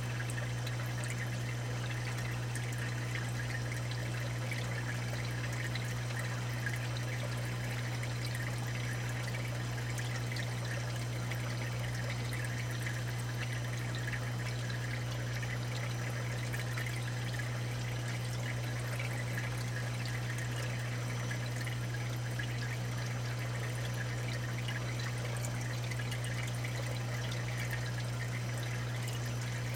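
Water trickling and splashing in a saltwater aquarium sump, steady throughout, over a constant low hum.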